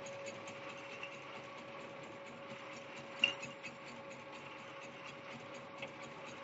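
Faint, steady machine hum, a single even tone over a low hiss, with a few light clicks, the sharpest about three seconds in.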